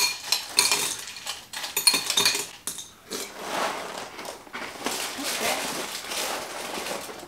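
A metal spoon clinks and scrapes in a small glass bowl of dry cereal, with sharp clinks near the start and again about two seconds in. Through the middle there is a denser rustle of the plastic liner inside a cereal box.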